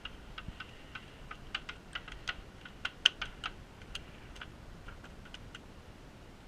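A couple dozen irregular, sharp clicks with a slight ringing pitch, the loudest about three seconds in.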